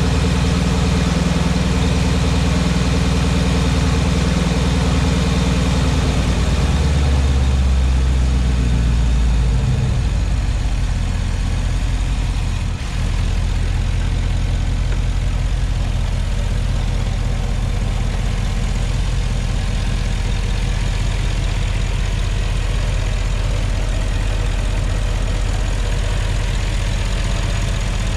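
Porsche Cayenne Turbo 957's twin-turbo V8 idling from cold. The idle drops to a lower speed about seven to ten seconds in, then runs steady.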